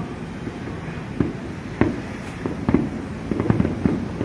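Fireworks display bursting: a string of irregular bangs over a continuous low rumble, with the bangs coming several a second from about three seconds in.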